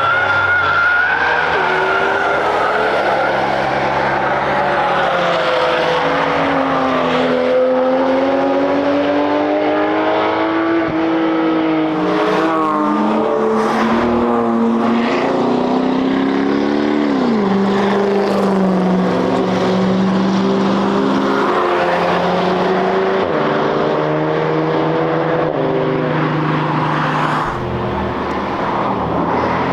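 Cars driven hard on a race track, engines revving up and dropping back through gear changes, with a few sharp cracks in the middle.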